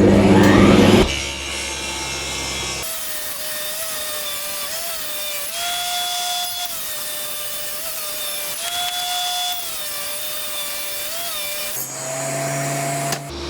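Power saw cutting scrap pieces of wood to width, running with a steady hiss and a whining tone that rises and dips slightly as it cuts. The first couple of seconds are louder and take in the tail of background music.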